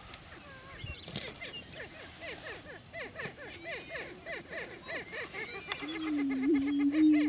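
Greater prairie chickens calling on a lek: a run of quick yelping cackles, each rising and falling, about three or four a second. From about six seconds in, a displaying male gives a low, steady booming moan.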